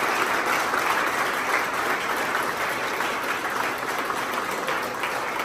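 A small crowd clapping their hands in applause, the clapping slowly dying down.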